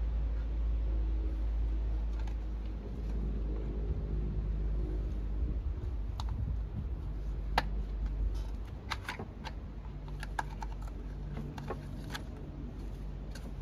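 Plastic engine cover of a STIHL FS250 brush cutter being jiggled and worked loose by hand: a scattered run of light plastic clicks and rattles from about six seconds in, over a steady low rumble.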